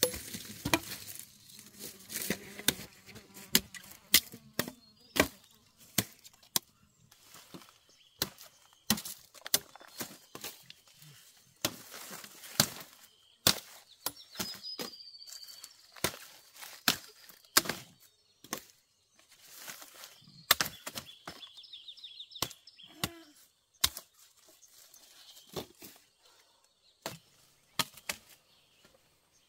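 Sharp, irregular strikes of a blade chopping through sugarcane stalks, one every second or so.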